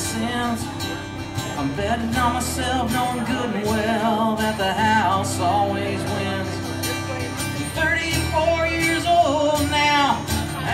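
Live country music: a strummed acoustic guitar with a pedal steel guitar playing a melody of gliding, bending notes over it.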